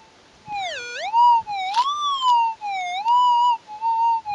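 Minelab GPX pulse-induction metal detector with a 14-inch mono coil giving its target signal as the coil sweeps over the dug-out soil. The gold target is now out of the hole. The signal is a warbling tone that swoops down and up in pitch several times, starting about half a second in.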